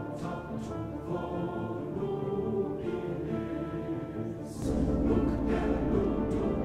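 Music for a rhythmic gymnastics ribbon routine, heard from a television broadcast; it grows louder with a heavier bass about two-thirds of the way in.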